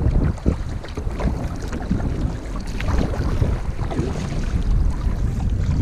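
Wind buffeting the microphone in a steady low rumble, over water sounds and scattered knocks from canoes being paddled.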